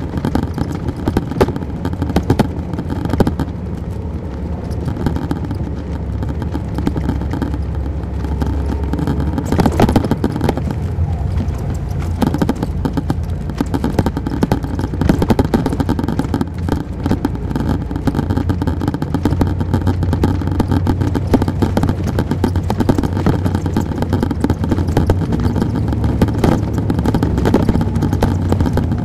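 Detroit Diesel Series 60 diesel engine of an MCI D4000 coach, heard from on board, running steadily under a constant clatter of interior rattles. The engine note steps up in pitch a little past halfway.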